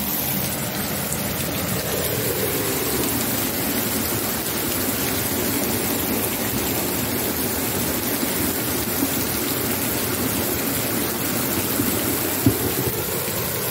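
Heavy rain pouring down onto a flooded street, with floodwater running over the pavement: a steady, dense hiss. One brief knock near the end.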